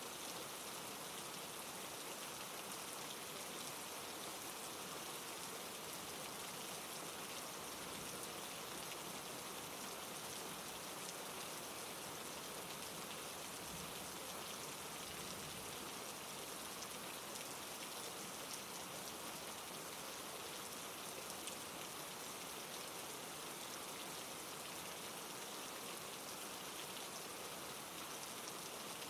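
Steady rain falling on a surface: an even hiss of many small drops that holds the same strength throughout.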